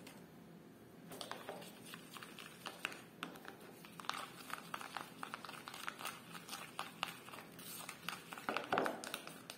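Plastic spoon stirring and scraping in a plastic bowl, mixing bleaching powder and hydrogen peroxide into a paste. It makes a run of soft, irregular scrapes and clicks, starting about a second in.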